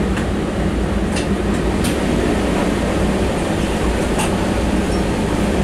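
Steady low rumble and hum inside a car of the Toronto Pearson Link Train, a cable-hauled airport people mover, with a few brief high ticks.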